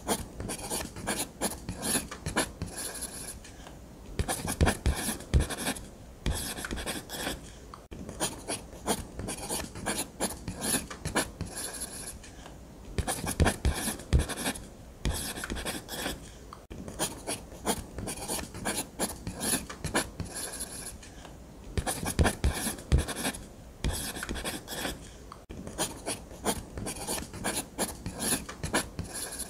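Ballpoint pen drawing on paper: quick scratchy strokes in runs, broken by brief pauses every few seconds.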